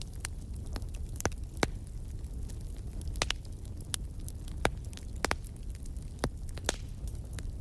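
Wood fire burning in a fireplace: a steady low rumble of flames with sharp, irregular crackles and pops from the burning logs.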